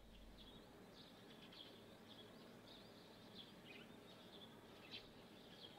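Near silence: a faint nature ambience of scattered, short high-pitched chirps over a low hiss.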